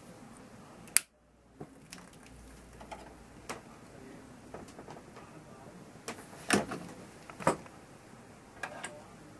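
Scattered sharp clicks and light knocks of a long-neck gas lighter being worked at the burner of a spirit-fired live-steam model locomotive, with a sharp click about a second in and two louder knocks near the end as the lighter is set down on the bench.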